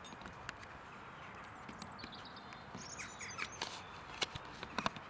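A horse's hooves stepping: a few scattered knocks that grow louder in the second half, over outdoor background noise with a few high chirps.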